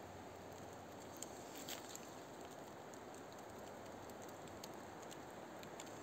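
Faint, irregular crackles and ticks of dry pine needles and twigs under slow footsteps on the forest floor, over a steady low hiss.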